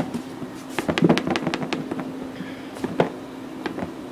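Plastic Tupperware-style dredging box being closed and shaken, floured green tomato slices knocking around inside: a quick run of clattering plastic knocks about a second in, then a few more later. A steady low hum runs underneath.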